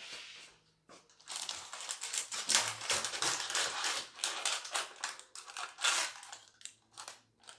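Parchment paper crinkling and crackling in irregular bursts as its overhanging edges are trimmed from a baking dish. The crackling starts about a second in and stops near the end.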